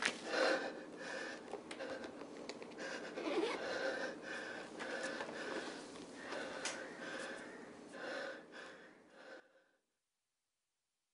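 A man weeping into his hands: irregular, ragged breaths and sobs that cut off abruptly near the end, leaving silence.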